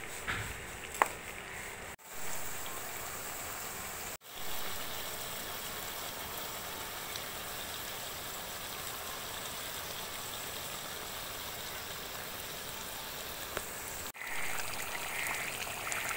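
Chicken curry sizzling and simmering in a metal wok over a wood fire, a steady bubbling hiss. A single sharp click sounds about a second in, and the hiss breaks off briefly a few times.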